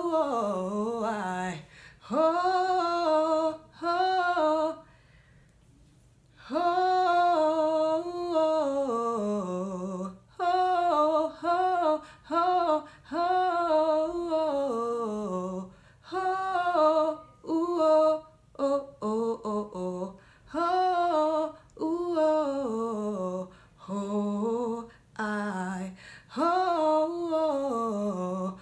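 A woman singing a cappella R&B riffs and runs without words, in short phrases of quickly bending notes that mostly slide downward, separated by brief pauses, with a longer gap about five seconds in.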